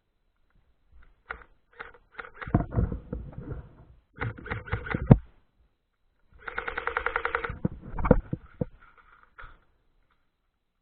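Airsoft gun firing: scattered single shots and short strings of shots, then a rapid full-auto burst of about twelve shots a second lasting just over a second, followed by a few more single shots.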